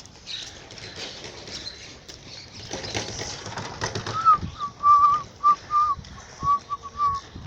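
A run of short whistled notes, all at about the same high pitch, starting about four seconds in over low background noise.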